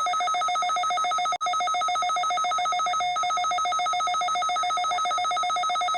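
Weather radio receiver's alert alarm going off for the required weekly test: a loud, rapidly pulsing electronic beep at two pitches, with a short break about one and a half seconds in.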